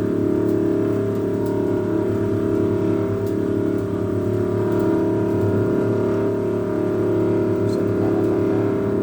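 Battery-powered (DC) cotton candy machine running with its head spinning, a steady hum with several held tones.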